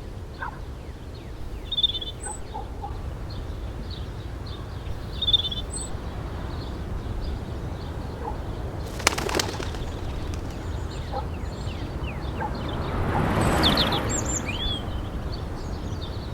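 Birds chirping and calling in short high notes, again and again, over a steady low rumble. A sharp click comes about nine seconds in, and a rushing noise swells and fades around thirteen to fourteen seconds.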